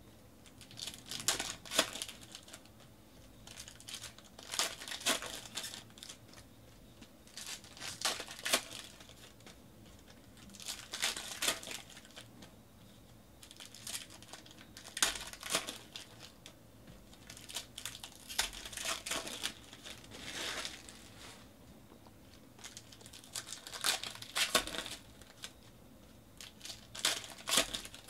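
Foil wrappers of Panini NBA Hoops trading-card packs crinkling and tearing open in the hands, in short crackly bursts every few seconds.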